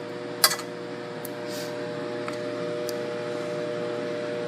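Steady hum of a kitchen appliance's fan motor, with one sharp click about half a second in and a few faint ticks.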